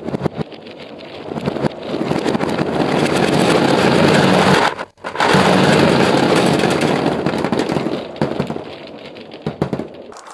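Dozens of gumballs clattering and rolling as they pour out of a tipped toy microwave onto a tabletop: a dense rattle that builds up, breaks off for an instant about halfway through, resumes, then thins to scattered clicks.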